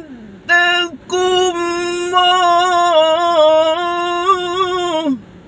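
Man reciting the Quran in slow melodic tilawah style, unamplified: a short sung note, then one long ornamented held note that wavers in pitch and falls away about five seconds in.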